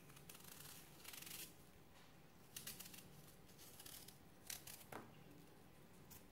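Paring knife peeling a Granny Smith apple: a few faint scraping strokes of the blade through the skin.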